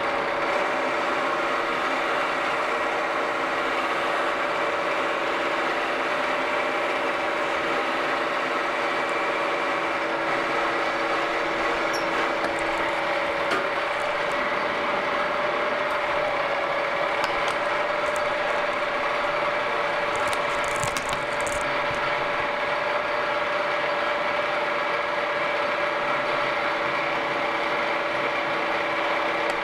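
A milling machine runs steadily while a 10 mm end mill cuts counterbores in a metal gear blank. The sound is a constant machine hum with two steady whining tones, and the lower tone stops about halfway through.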